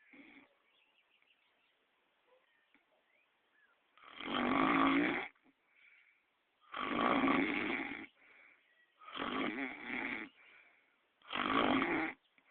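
Loud snoring: after a few quiet seconds, four long snores come at a steady pace, roughly one every two and a half seconds.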